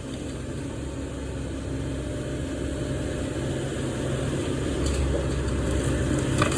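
Engine running steadily and growing gradually louder, with a couple of faint knocks near the end.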